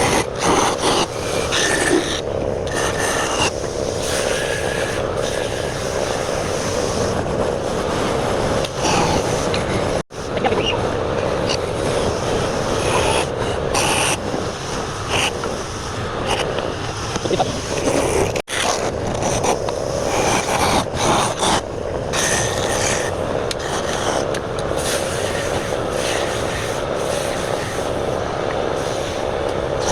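Wood lathe running while a hand tool cuts the spinning wood: a steady scraping noise with irregular accents, cutting out briefly twice.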